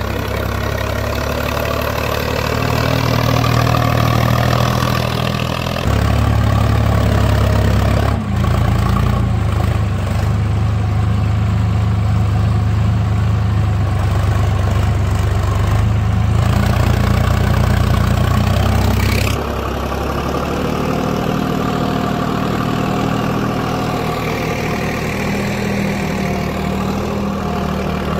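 Sonalika DI-745 III tractor's diesel engine running steadily while pulling a cultivator through a field. The sound jumps abruptly in level and pitch about 6, 8 and 19 seconds in as the shots change.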